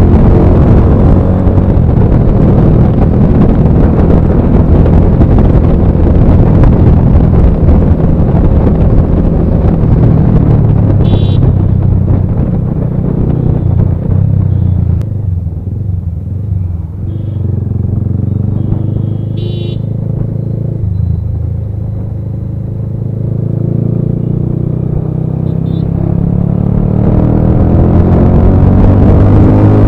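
Bajaj Pulsar 220F single-cylinder engine with a full-system aftermarket exhaust, riding at speed under heavy wind rush. It eases off about halfway through, then revs back up and accelerates toward the end. Two brief high tones sound in the middle.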